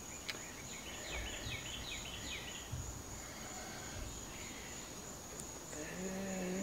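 Outdoor ambience: a steady high-pitched insect drone, with a bird singing a run of quick descending chirps about a second in. Soft rustling of a cotton t-shirt being unfolded, and a short low hum near the end.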